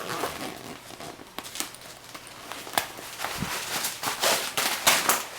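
Stroller canopy fabric and its plastic parts being handled as the canopy is taken apart: crackly rustling and irregular sharp clicks, thickest and loudest about four to five seconds in.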